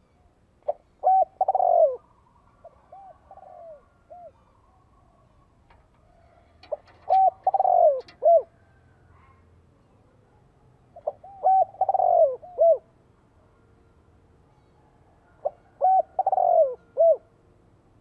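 Spotted dove cooing its territorial call four times, about every four and a half seconds: each phrase a short coo, a pair of notes, a longer falling coo and a short final note. A fainter run of coos follows the first phrase. The call serves as a decoy to draw wild doves in.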